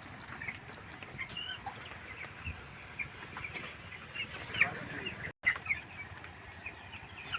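A flock of 13-day-old chicks peeping, many short high chirps overlapping. The sound cuts out completely for a moment about five seconds in.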